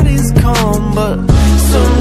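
A song with a heavy bass line and steady beat, with a sung vocal melody over it.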